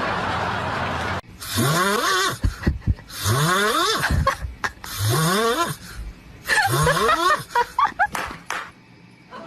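Snoring: four loud snores about a second and a half apart, each rising in pitch. A cut from another sound comes just before them, about a second in.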